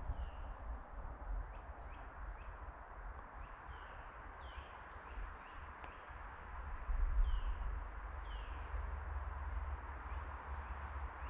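Small birds calling in the forest, a scatter of short falling chirps, over a steady hiss. A low rumble runs underneath and grows louder about seven seconds in.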